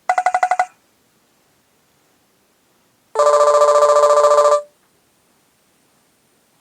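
Two short electronic ring tones from a Nokia 6230 mobile phone's speaker: a rapidly pulsing burst of about half a second, then after a pause of over two seconds a longer, fast-trilling ring of about a second and a half, lower in pitch.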